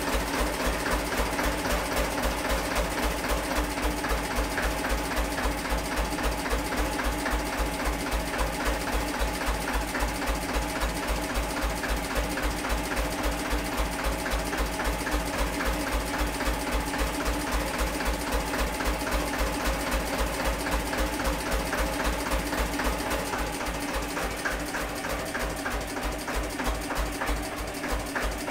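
Vintage stationary engine running with an even, thumping beat, several strokes a second. Near the end the beat turns uneven and weaker.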